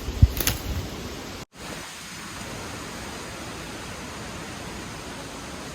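Steady heavy rain, an even hiss. In the first half second there are a few low thumps and a brief rustle, and a sudden cut follows about a second and a half in.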